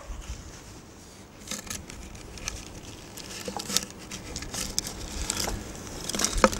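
Rustling and scraping of a float tube being handled as a float is drawn out of it, with scattered light clicks and taps that grow busier and are loudest near the end.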